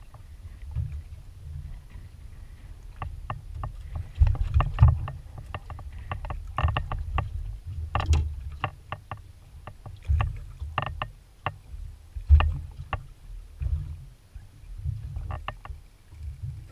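Water slapping against the hull of a small aluminium boat in uneven low thuds, with several louder knocks, mixed with irregular sharp clicks.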